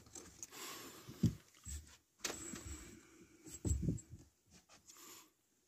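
Handling noises in a truck cab: a few scattered knocks and clicks of hands on plastic trim and a strap, with some brief low thuds.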